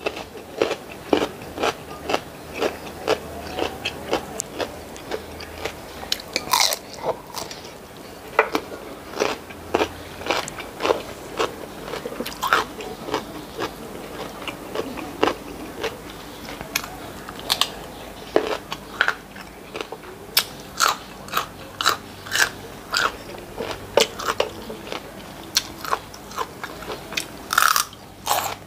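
Close-up mouth sounds of a person chewing food, with crisp crunching bites of raw cucumber, repeated about once or twice a second.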